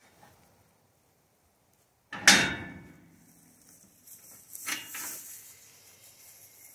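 Metal cut gate and latch of a livestock trailer being opened: one loud metal clank about two seconds in with a short low ring, then a second, softer clank as the gate swings open.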